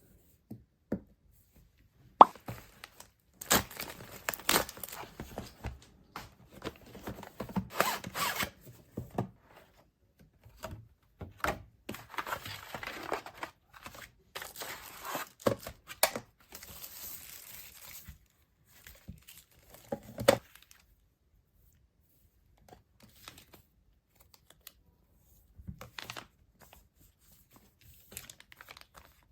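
Packaging being opened by hand: a sharp click about two seconds in, then stretches of tearing and crinkling packaging mixed with small taps and clicks, fading to a few faint taps in the later part.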